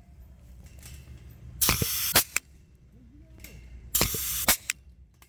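Pneumatic clip-binding tool fastening steel clips onto gabion wire mesh, fired twice. Each shot is a short hiss of air about half a second long, opening and closing with a sharp click.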